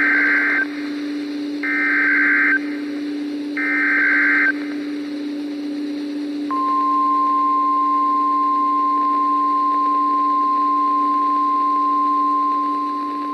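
Emergency Alert System activation over NOAA Weather Radio: three short screeching bursts of SAME digital header data about two seconds apart, encoding a tornado warning, then about six and a half seconds in the single-pitch weather-radio attention tone starts and holds steady. A steady low hum runs beneath throughout.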